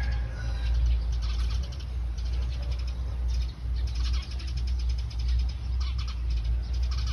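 Birds chirping in short bursts of rapid high notes, several bursts over the few seconds, over a steady low rumble.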